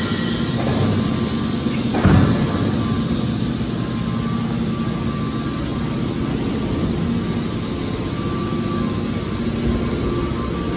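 Hydraulic scrap metal baler running: a steady hum from its electric motor and hydraulic pump, with one heavy clunk about two seconds in.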